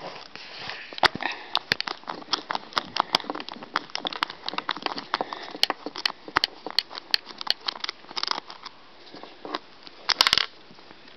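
Nut driver working the wheel nut on a Traxxas Slash 4x4 RC truck: a run of irregular small clicks and scrapes as the nut is undone. About ten seconds in comes a short, dense clatter as the wheel is pulled off the axle.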